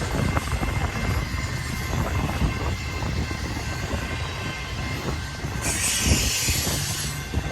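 Intermodal freight cars of a BNSF train rolling past with a steady low rumble in strong wind. A high hiss from the passing train joins for about a second and a half near the end.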